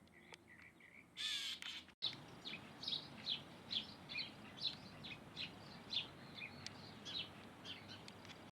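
Birds calling: one harsh squawk, then a run of short, sharp chirps repeated about two to three times a second over a background hiss.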